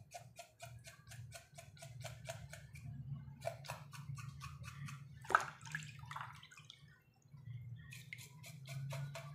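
Wet cow snout being scrubbed by hand over a basin of water: quick rhythmic rubbing strokes, about five a second, with water dripping. There is one louder splash about five seconds in, and the rubbing pauses briefly near the end.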